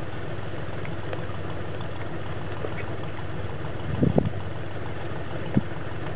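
1989 Isuzu Trooper's engine idling steadily, with a few short knocks about four seconds in.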